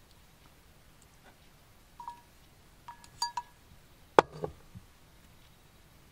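A metal spoon clinks against a stainless steel cup several times, with short ringing tones, then a sharp knock a little after four seconds in as the cup is set down on the wooden shelf.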